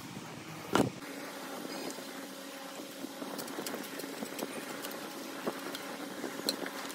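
A single thump about a second in, as a sheet of corrugated cardboard is handled and set down, over a steady low hum with a few faint clicks.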